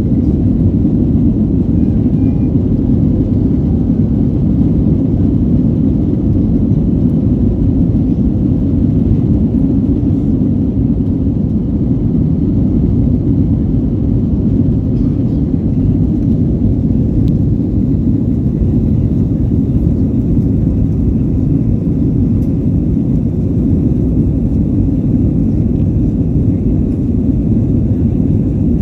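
Jet airliner cabin noise during climb-out after take-off: a steady low rumble of the engines and rushing air, heard inside the cabin from a window seat over the wing.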